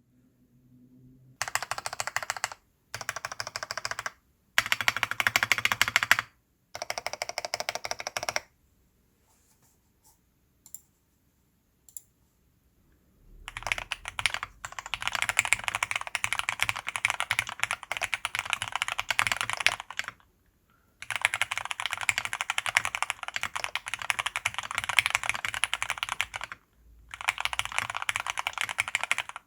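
Typing on a TX66 aluminium custom mechanical keyboard with lubed Cherry MX Black (Hyperglide) linear switches and PBT keycaps. Four short runs of fast keystrokes come first, then a pause of a few seconds broken by a few lone key presses, then long runs of steady typing.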